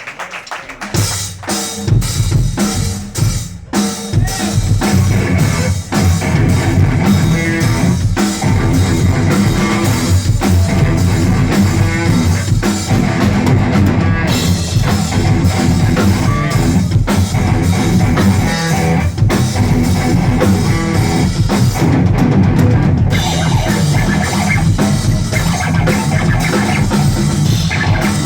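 Live instrumental rock played on a drum kit and electric guitar, kicking in about a second in with fast, heavy drumming.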